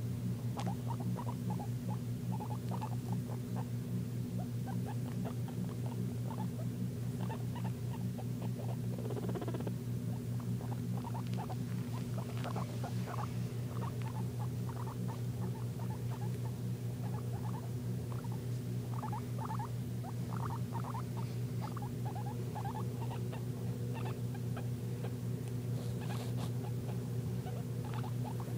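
A small pet animal making many short, quick squeaks and chirps in irregular runs, over a steady low hum.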